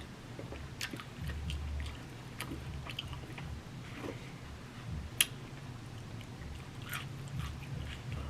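Close-miked chewing of a taco bowl with steak, chicken and lettuce: scattered wet mouth clicks and smacks, with one sharp click about five seconds in, over a low steady hum.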